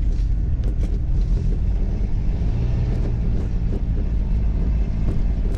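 Mitsubishi Pajero 4x4 driving over a snow-covered dirt track, heard from inside the cabin: a steady low rumble of engine and tyres, with a few faint knocks.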